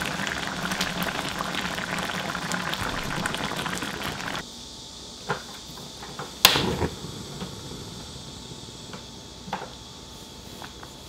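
Spicy braised cutlassfish simmering in a pot, its thick red sauce bubbling and popping steadily for about four seconds before it cuts off suddenly. A quieter hiss follows, broken by a few sharp clicks, one of them loud about halfway through.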